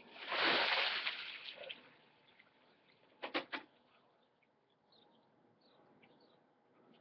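Ice water dumped from a container over a person's head, splashing loudly for about a second and a half and dying away to a trickle. About three seconds in, three quick sharp knocks.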